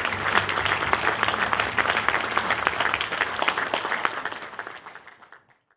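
Large audience applauding, a dense crackle of many hands clapping that fades out near the end.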